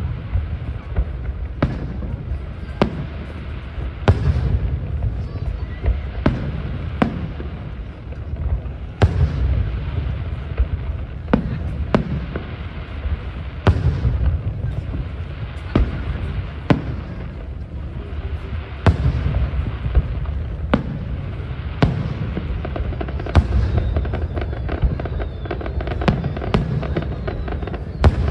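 Aerial fireworks shells bursting, a sharp bang every second or two over a continuous low rumble of booms.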